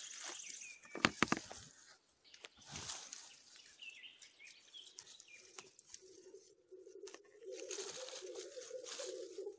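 Dry fallen leaves and grass crackling and rustling as a hand reaches in and pulls an orange-cap bolete out of the leaf litter, the sharpest crackles about a second in. A steady low hum comes in about halfway through.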